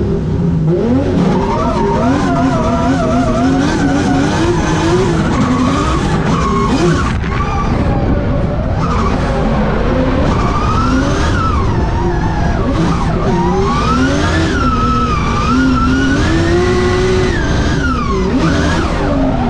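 Drift car running hard on track, heard from inside its stripped, roll-caged cabin. The engine revs climb and fall again and again with throttle and gear changes, and tyre skidding noise runs underneath.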